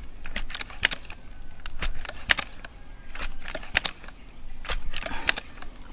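Multi-pump bullpup air rifle being pumped up for a seven-pump shot: its pump lever and linkage give repeated sharp metallic clicks and clacks, stroke after stroke.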